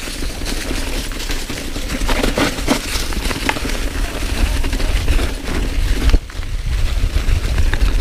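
Mountain bike clattering down a rough singletrack, its tyres crunching over dry fallen leaves and rocks in a rapid, continuous rattle, with wind rumbling on the helmet-camera microphone. A harder knock comes about six seconds in.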